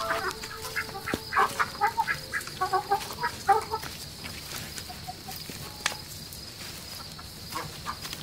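Chickens clucking: a quick flurry of short calls over the first four seconds, thinning to a few scattered calls, over a steady high background tone.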